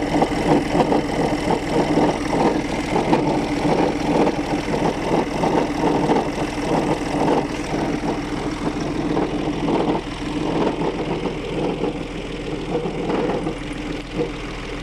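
Audi A1 1.4 TDI diesel engine idling with an irregular rattling clatter that comes with the clutch pedal's position, the strange noise under investigation. The rattle eases off about ten seconds in.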